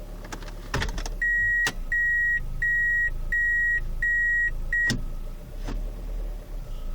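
Toyota Corolla Fielder idling. A knock comes as the U340E automatic is put into reverse, then the reverse warning beeper sounds six times at one steady pitch, the last beep cut short by a click as reverse is disengaged. The knock on engaging reverse is the fault the owner is chasing.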